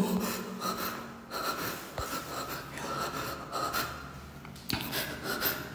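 A man breathing close to the phone's microphone, in quick, uneven breaths.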